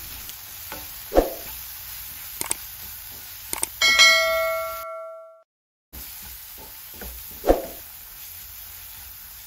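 A wooden spatula scraping and knocking around a frying pan as a spiced tomato-onion masala is stirred, over a light frying sizzle. About four seconds in comes a click followed by a bell-like notification chime from a subscribe-button animation, which rings for about a second before the audio cuts out briefly.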